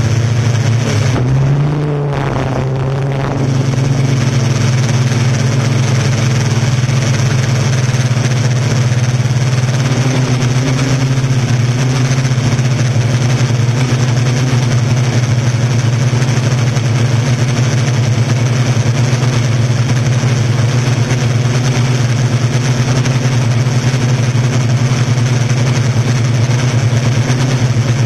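Yuneec Typhoon Q500 4K quadcopter's motors and propellers humming steadily, heard from on board the drone. The pitch wavers and the level dips briefly a couple of seconds in.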